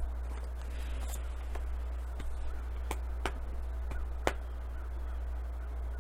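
Tarot cards being handled and laid down: a run of sharp, light clicks and taps, about seven in the first four and a half seconds, over a steady low hum.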